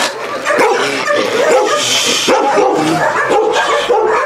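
Many shelter dogs barking and yipping at once, a dense, continuous chorus of overlapping barks.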